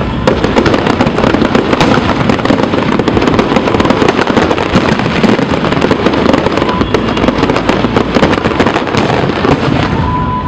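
Fireworks display: dense, continuous crackling and popping of many shells at once, with deep booms underneath, easing slightly near the end.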